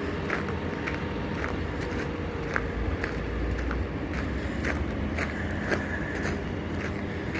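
Footsteps on pavement at a walking pace, about two a second, over a steady low rumble.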